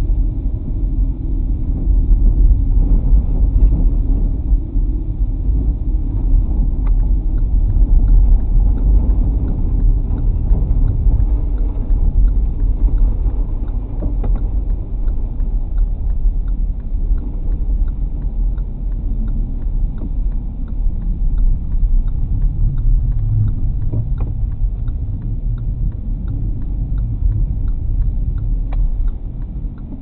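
Low, steady rumble of a car driving on a snow-covered road, heard from inside the cabin: engine and tyre noise, with a few faint clicks scattered through it. The rumble drops somewhat near the end.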